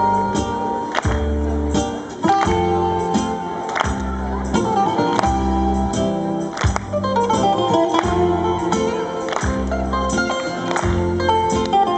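Greek sirtaki dance music: a bouzouki picks the melody over a steady, repeating bass beat.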